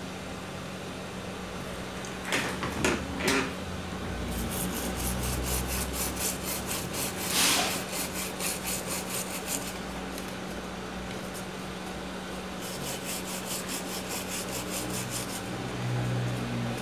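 Toothbrush bristles scrubbing back and forth on a thinner-wetted circuit board, cleaning off flux residue after soldering, in two spells of fast, evenly repeated strokes.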